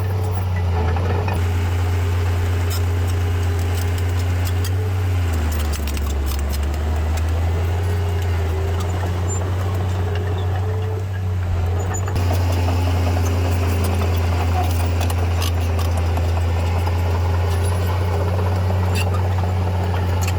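Small bulldozer's diesel engine running steadily under work. Its pitch drops about five seconds in as it takes load, and it grows louder again about twelve seconds in, with scattered clanks over the top.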